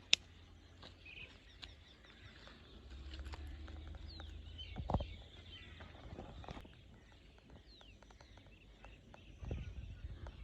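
Quiet outdoor ambience: birds calling faintly in short falling chirps over a low rumble, with a sharp click near the start and a few dull thumps, the largest about halfway through and another near the end.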